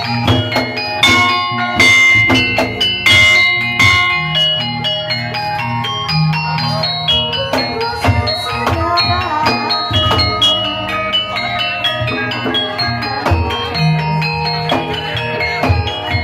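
Javanese gamelan music of the kind that accompanies kuda lumping. Bronze metallophones and gongs ring steady pitched notes over regular drum strokes.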